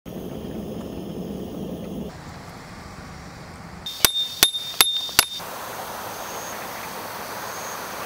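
A hammer driving a metal tent peg into the ground: four sharp metallic strikes, a bit over two a second, each ringing briefly.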